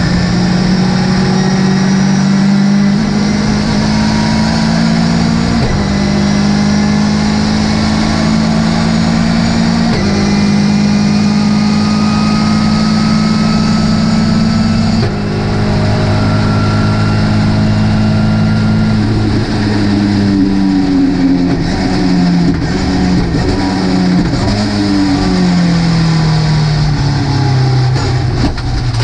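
Onboard sound of a Ginetta GT5 race car's engine under way, holding steady revs with a few sudden jumps in pitch as it changes gear. About two-thirds of the way through, the revs fall and jump back up again and again, as in a series of downshifts.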